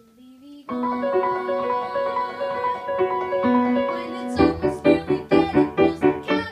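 Piano accompaniment playing an instrumental passage with no singing. After a short near-quiet pause it plays held chords, then about four seconds in it breaks into short repeated chords, about three a second.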